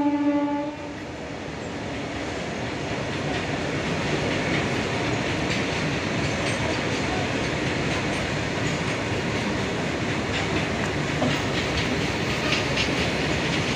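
A train horn sounds one steady note that cuts off about a second in. Then a freight train of open-top steel wagons rolls steadily past, its wheels clacking over the rail joints, the clacks coming thicker near the end.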